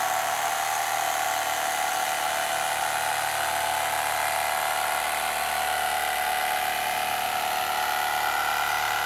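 Electric carving knife running steadily as its blades cut through a foam case insert, a steady motor whine.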